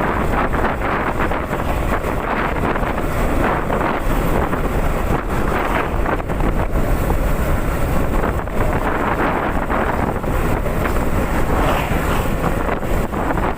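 Steady wind noise on the microphone from a Honda CB150R motorcycle being ridden at speed, mixed with the bike's engine running.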